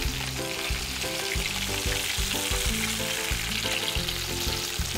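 A whole yellowfin seabream sizzling steadily as it pan-fries in oil in a wok over medium heat.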